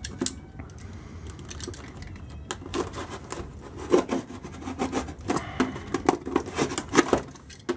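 Cardboard box and packing tape being cut and handled: rubbing and scraping, with irregular clicks and taps that grow busier from about two and a half seconds in.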